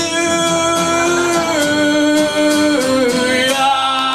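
A man singing a long, drawn-out closing note over a strummed acoustic guitar, the pitch stepping down near the end as the song finishes.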